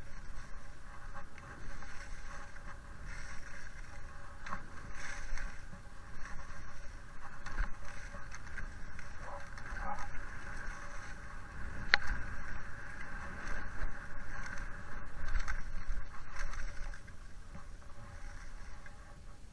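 Dynastar Speed Cross Pro skis scraping and carving on a groomed piste, with wind rushing over an action camera's microphone, the noise rising and falling in surges through the turns. A sharp click comes about twelve seconds in, and the sound dies down near the end.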